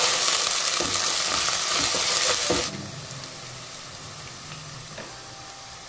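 Onions, green chillies and ginger-garlic paste sizzling in hot oil in a kadai, stirred with a wooden spatula that scrapes a few times. A little under three seconds in the sizzle drops suddenly to a quieter, steady hiss.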